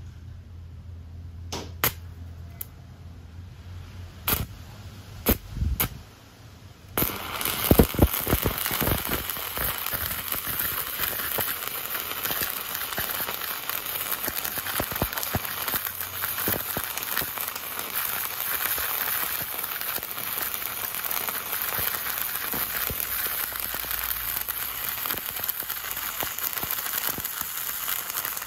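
Stick (MMA) arc welding from a homemade full-bridge welding inverter set to 100 A: a few sharp snaps as the electrode is struck, then from about seven seconds in a steady, dense crackling and sizzling of the burning arc.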